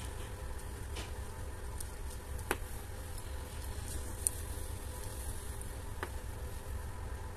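A few light clicks of steel tweezers touching and setting down small watch-movement parts, spaced out over several seconds. Under them runs a steady low hum.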